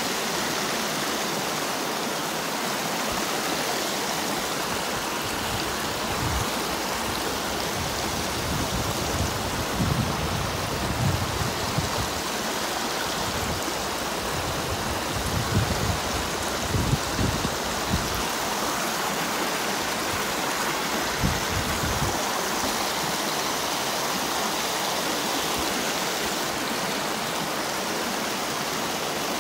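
Shallow stream running over rocks, a steady rushing of water. Irregular low bumps come and go in the middle of it.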